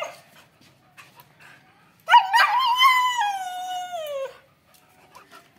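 Siberian husky giving one long wavering howl about two seconds in. It lasts about two seconds and slides down in pitch at the end. The dog is excited at being harnessed for a walk.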